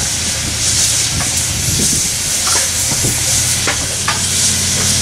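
Standing 1923 Montreal Locomotive Works 0-6-0 steam switcher hissing steam steadily over a low, steady hum, with a few light knocks.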